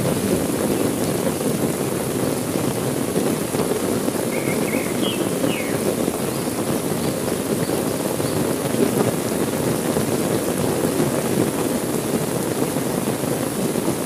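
Heavy rain falling steadily, an even wash of sound with most of its weight low in pitch.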